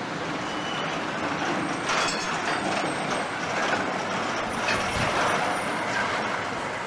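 City street traffic: cars, vans and electric trams passing, heard as a steady noise of engines, tyres and rolling wheels.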